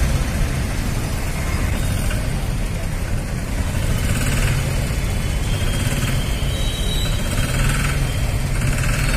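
Engine running steadily, a loud low hum under a broad rushing hiss.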